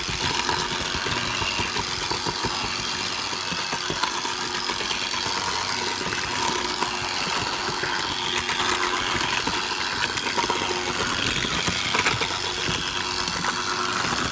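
Electric kitchen mixer running steadily, mixing the dry ingredients into sugar cookie dough.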